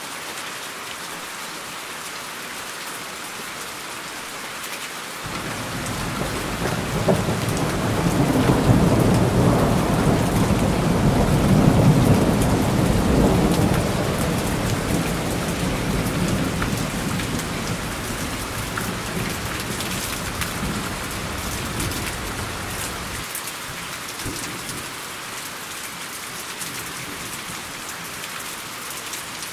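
Steady rain with a long roll of thunder. The rumble comes in about five seconds in, swells to its loudest around the middle, then slowly dies away, and its deep low end cuts off abruptly about three quarters of the way through.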